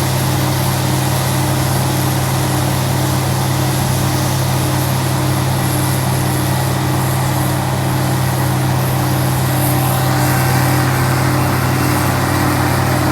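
Engine of harvest machinery running steadily at constant speed, a loud, even low hum that does not change.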